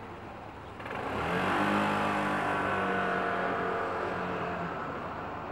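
A motor vehicle's engine close by, coming in quickly about a second in with a steady engine note and easing off near the end, over the background noise of the street.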